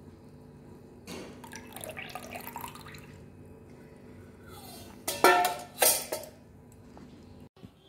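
Dishes being handled, with two loud clanks of kitchenware about five and six seconds in and quieter clinks before, over a low steady hum.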